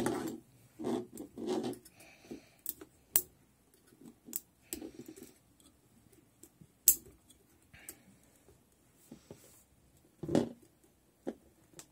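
Scattered clicks, taps and rustles of metal tweezers and fingers working at a stuck little zip tie and fan cable on a graphics card's metal heatsink. There are a few sharp clicks and one duller knock near the end.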